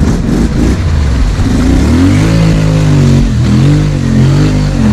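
ATV engine revving hard, its pitch climbing and dropping several times from about two seconds in, as the quad works through a deep mud hole.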